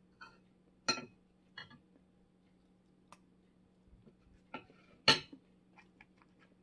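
Spoon and fork clinking against a plate while eating: a few short sharp clinks, the loudest about a second in and again about five seconds in, with smaller ticks between and near the end.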